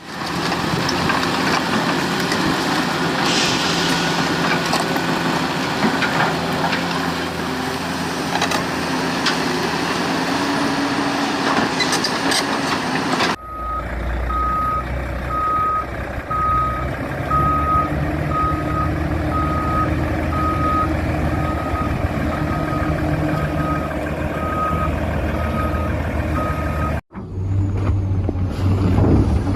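Electric motors and gearboxes of RC construction models running and whining. After a cut, a model truck's reversing beeper sounds a steady run of short beeps at one pitch over the motor hum, until another cut near the end.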